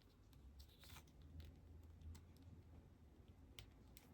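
Near silence: faint scattered clicks and rustles of a plastic action figure being handled, over a low hum.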